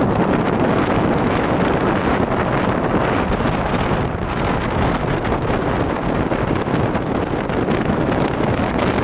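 Wind rushing over the microphone as a Phoenix 618 Pro bass boat runs across open lake water, with the boat's motor underneath. The noise is loud and steady throughout.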